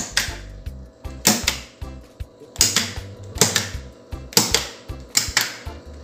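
Rotary selector switches on a fan motor control panel clicking sharply as they are turned one after another, often in pairs about a second apart, with the fan contactors switching in and out.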